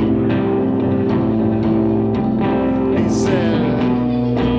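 Live solo music: a guitar played with long sustained notes under plucked notes.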